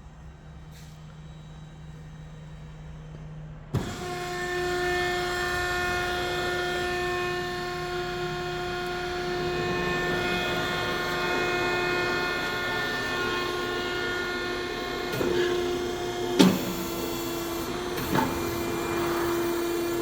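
Electric motor of a vegetable dicing machine switched on with a click about four seconds in, then running with a steady hum. A few sharp knocks sound near the end.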